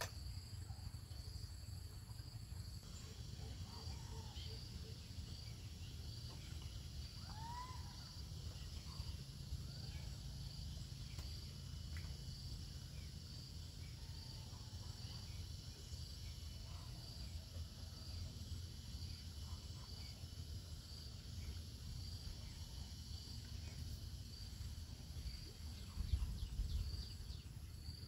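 Insects chirping steadily, one of them pulsing about once a second, with a few short bird chirps and a low rumble beneath; a brief low thump comes about two seconds before the end.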